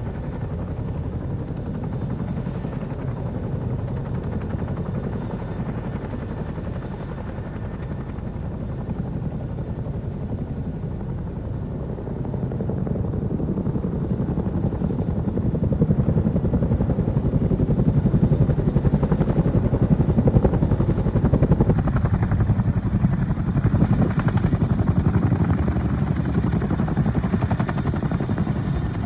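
Boeing CH-47 Chinook tandem-rotor helicopter running at full rotor speed: a steady, dense beat from its two rotors with a thin high turbine whine above it. It grows louder about twelve seconds in as the helicopter powers up and lifts into a low hover.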